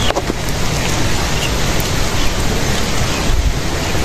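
Wind buffeting the microphone: a steady rushing noise, with a few sharp crackles at the start.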